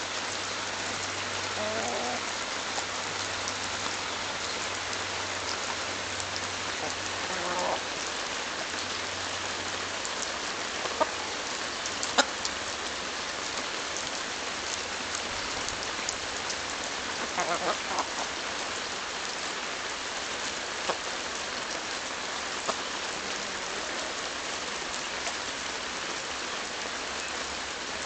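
Chickens pecking kernels off a hand-held corn cob, with a few sharp beak strikes and some soft clucks, over a steady hiss of light rain.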